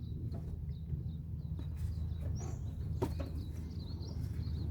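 Small birds chirping over a steady low hum, with a light click about three seconds in.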